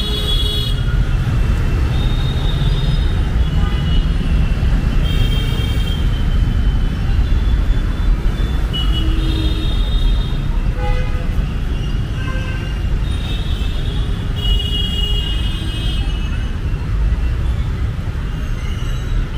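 Busy road traffic: a steady rumble of passing engines and tyres, with short vehicle horn honks every couple of seconds.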